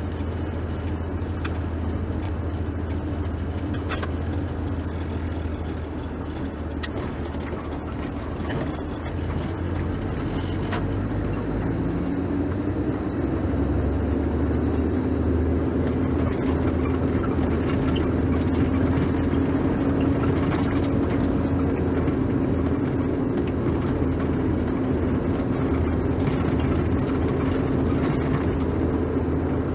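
Car engine and road noise heard from inside a moving vehicle: a steady low drone that grows a little louder, with a stronger hum, from about halfway through as the car picks up.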